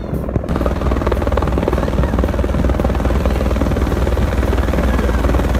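Helicopter flying low overhead, its rotor blades chopping rapidly over a deep rumble, coming in about half a second in.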